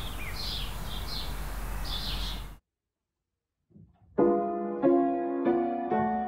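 Outdoor garden background with birds chirping, cut off abruptly by a second of silence. Then piano chords begin, struck about one and a half times a second, each one ringing and fading.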